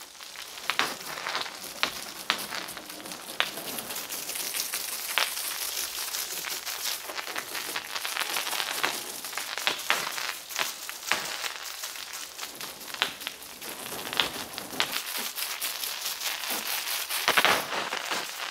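Water jet from a garden hose spray nozzle hitting a tractor's cab, tyres and rear hitch and splashing onto the wet concrete, as detergent is rinsed off. It is a steady hissing spatter with many irregular sharp splats.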